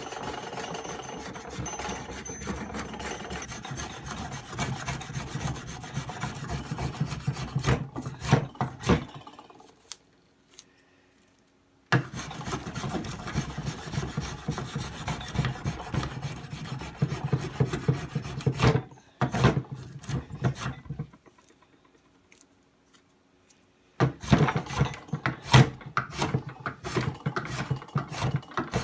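Small hand plane shaving curls off a hardwood mallet handle, in runs of quick rasping strokes, stopping twice for a few seconds.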